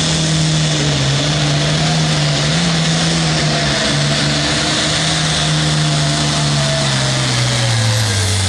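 Case IH 7210 Pro Farm pulling tractor's diesel engine running hard under load as it drags the pulling sled. It holds a steady pitch, then the revs sag and the pitch drops near the end.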